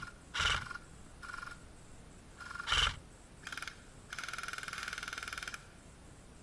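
Airsoft electric gun firing a rapid full-auto burst of about a second and a half, after a few short, sharp sounds.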